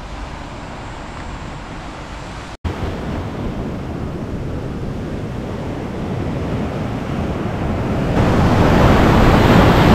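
Ocean surf breaking and washing up a sandy beach, with wind buffeting the microphone. The sound drops out for an instant about two and a half seconds in and grows louder near the end.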